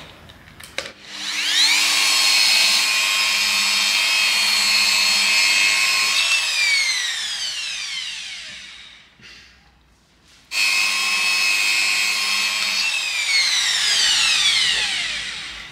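Corded rotary car-paint polisher with a foam pad running at a steady whine, then spinning down with falling pitch. It starts again suddenly about halfway through and winds down once more near the end. This is the pre-polishing pass on black paint freshly wet-sanded with 6000 grit, the first of three polishing steps.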